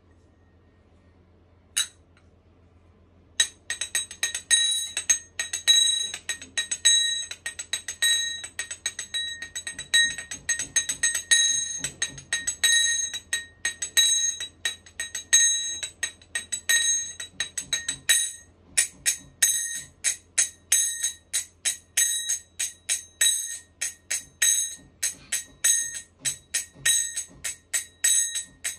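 A pair of kartals, small metal hand cymbals, clashed together. There is a single clang about two seconds in, then from about three seconds a quick, continuous rhythm of clashes, each with a bright, ringing metallic tone.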